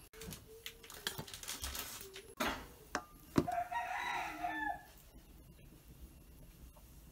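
Spoon and ladle scraping through cooked rice in a metal pot, with a few sharp knocks against the pot. A rooster crows once, about a second and a half long, near the middle.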